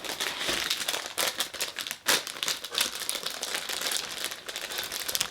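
Plastic snack packaging crinkling and rustling as it is handled, with irregular crackles throughout and one sharper crackle about two seconds in.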